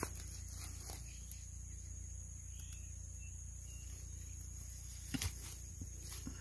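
Quiet outdoor background: a steady low rumble and a faint, even high-pitched insect drone, with a few short knocks about five and six seconds in.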